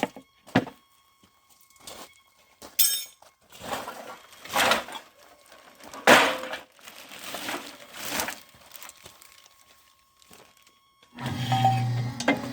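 A few sharp knocks, then several rough crunching bursts of something being crushed or splitting; about eleven seconds in, a steady low hum starts.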